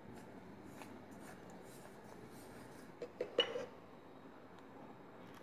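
Hands mixing flour, oil and water into dough in a steel plate: soft rubbing and crumbling. About three seconds in come two sharp knocks of the hand against the metal plate, each with a brief ring.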